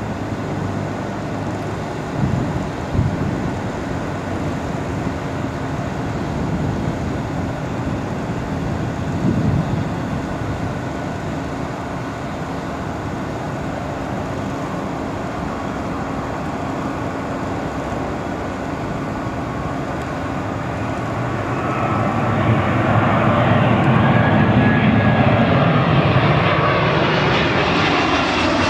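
Airbus A319-132 airliner on final approach, its two IAE V2500 turbofan engines giving a steady jet rush. The rush grows louder over the last several seconds as the aircraft comes close overhead, and a high whine rises in on top near the end.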